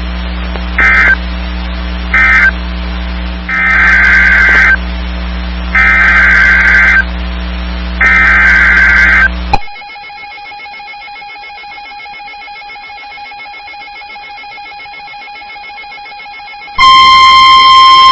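NOAA Weather Radio Emergency Alert System data tones. First the last two short end-of-message bursts of SAME digital data, then three longer SAME header bursts with a buzzy warble, which announce a new alert. After a quieter stretch with a faint steady tone, the loud steady 1050 Hz weather radio warning alarm tone begins near the end.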